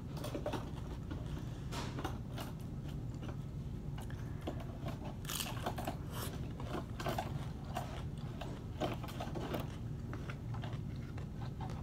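Crisp fried corn tostada topped with crab-meat ceviche being bitten and chewed, in irregular crunches.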